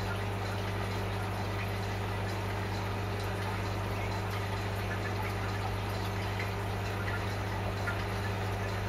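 Aquarium filter running: a steady low hum with water trickling and light dripping over it.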